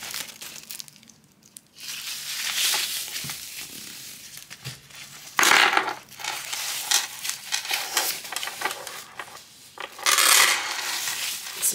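Crinkling and tearing of protective wrapping as it is pulled off a gold metal chain strap, with the chain's links clinking as it is handled. The loudest bursts of rustling come about halfway through and again near the end.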